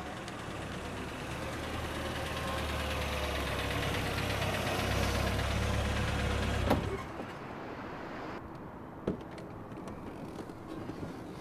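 Small hatchback car's engine running as the car pulls up and parks, growing slightly louder, then switched off with a sharp click about seven seconds in. A single sharp knock follows a couple of seconds later.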